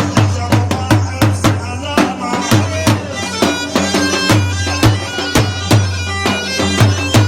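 Live band music for dancing: a reedy, piping melody over a held low drone, with a steady, evenly spaced drum beat.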